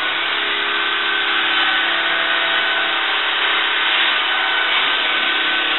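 Handheld electric random orbital sander running steadily against a car's body panel, sanding the paint down to bare metal: a steady motor whine over a rough, even hiss.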